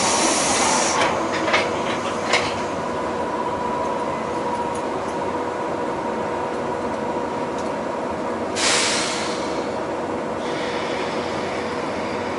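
Inside a stationary 117 series electric train: a steady hum of onboard equipment with two held tones. A hiss of compressed air comes right at the start with a few clicks after it, and a second, shorter hiss follows about eight and a half seconds in.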